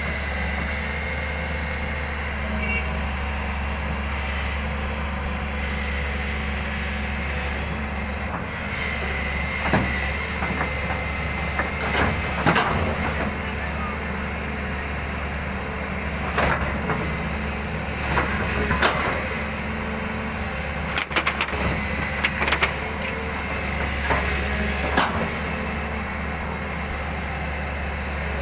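SANY SY220C-9 hydraulic excavator's diesel engine running steadily at work, with sharp clanks and knocks every few seconds, more of them in the second half.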